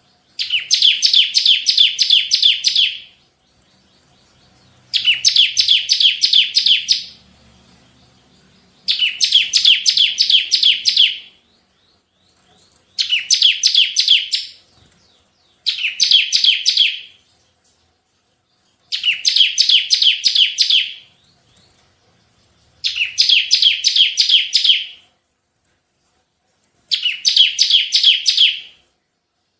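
Bar-winged prinia (ciblek) singing its 'tembakan' song. Eight phrases of quickly repeated high notes, each about two seconds long, come with short pauses between them.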